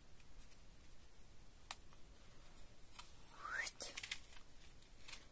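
Faint rustling and light clicks of hands handling a paper shaker card and its ribbon, with a sharper click near two seconds in and a short rising squeaky rub about three and a half seconds in.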